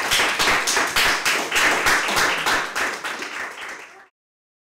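Audience applauding: many hands clapping, fading down and then cutting off suddenly about four seconds in.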